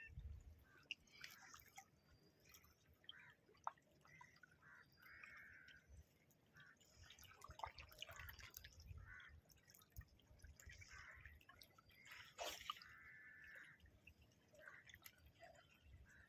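Faint water sounds: small splashes and dripping at the surface, scattered irregularly, with a slightly louder splash about twelve seconds in.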